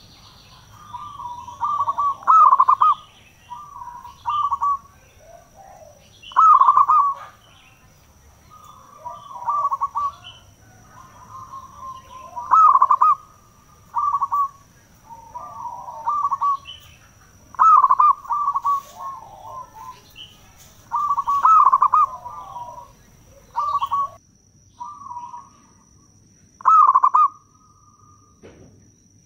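Zebra dove (perkutut) singing: phrases of quick, rolling coos repeated every two to four seconds.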